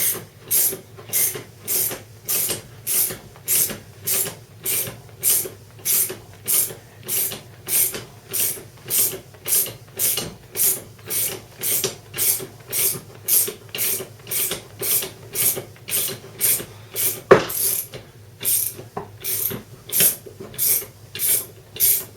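Ratchet wrench clicking in short, even strokes, about two a second, as it cranks the screw of a chain breaker tool pressing a rivet pin out of a motorcycle drive chain. One sharper knock about three-quarters of the way through.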